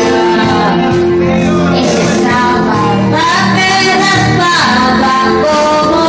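A woman singing through a handheld microphone over backing music, holding long notes that bend in pitch.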